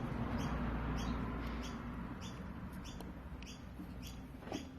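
A small bird chirping over and over, short high chirps about twice a second, over a faint low steady hum.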